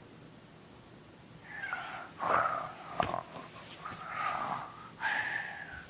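A young child making snoring noises through her nose and throat, four snorts about a second apart that start a second and a half in, with a sharp click near the middle.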